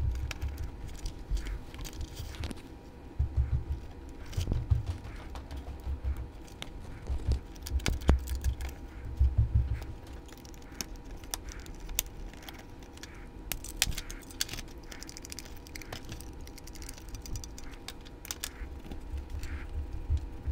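Irregular small clicks and taps of plastic and metal model-locomotive parts being handled and fitted together by hand on a workbench, with soft low thuds as the parts and bench are touched.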